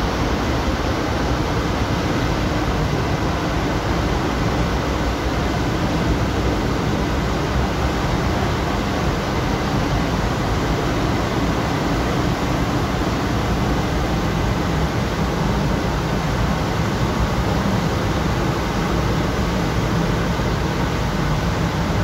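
Steady rushing noise of the Iguazu Falls' cascades, heard at close range amid the spray.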